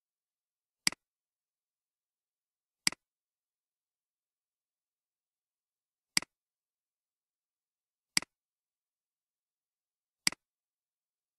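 Computer mouse button clicked five times, a second or few apart. Each is a sharp click with a softer second click right after it, the button's press and release.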